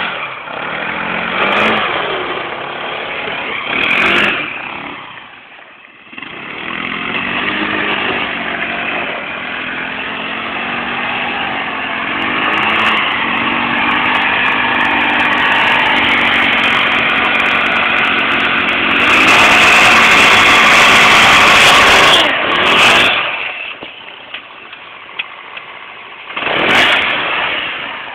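ATV engine running and revving, its pitch rising and falling; it is loudest about twenty seconds in, then drops back.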